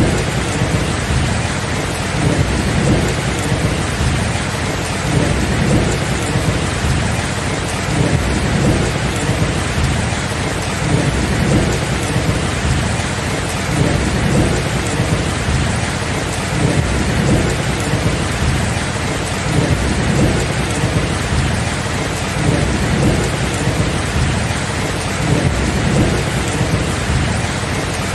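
A thunderstorm: steady heavy rain with a continuous low rumble of thunder that swells and eases, with no sharp single claps.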